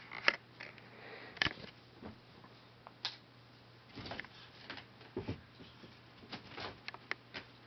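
Maine Coon cat leaping at a feather toy: claws scrabbling on a carpet-covered post and thumps as it lands, in short irregular bursts.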